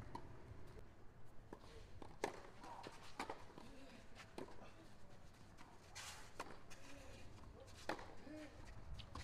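Tennis court between points: scattered soft knocks and scuffs of players and ball on clay, with faint voices in the background. A sharper crack just before eight seconds in, as the serve is struck.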